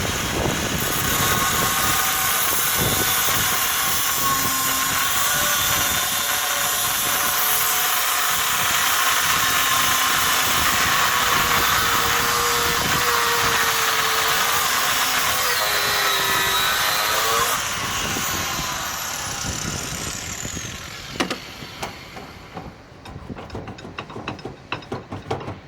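Corded electric power tool cutting through the weld that holds an old leg vise to a steel table, running steadily under load. It is switched off about 17 seconds in and winds down with a falling whine. Scattered light clicks and knocks follow.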